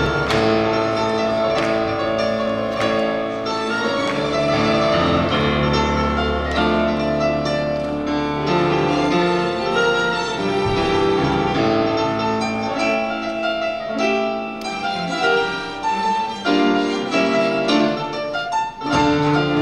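Bösendorfer grand piano playing with a string orchestra in classical-style concert music. The notes come more sparsely in the second half, with clearer separate piano attacks.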